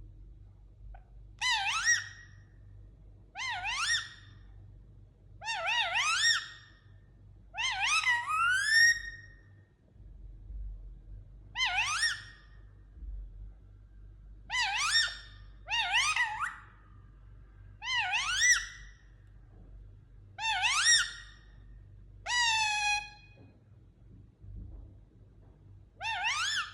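A parrot calling the same rising, whistle-like call over and over, eleven times, each about a second long and roughly two seconds apart.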